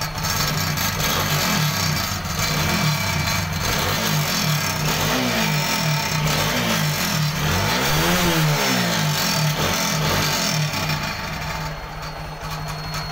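TVS Apache RTR 160 4V motorcycle's single-cylinder engine idling after a fresh start and blipped on the throttle again and again, with one bigger rev about eight seconds in. With the revs comes the irritating noise from the exhaust silencer, which the owner puts down to the silencer's inner mesh coming loose.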